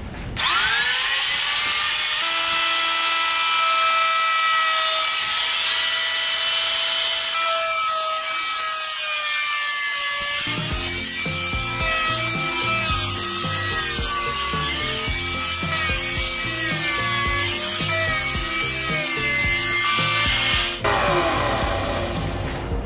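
Electric trim router spinning up with a rising whine, then running at a high, steady pitch while it cuts a bullnose round-over profile along the edge of a rosewood trim piece; the pitch wavers and dips as the bit takes load. Near the end it is switched off and winds down. Background music with a beat comes in about halfway through.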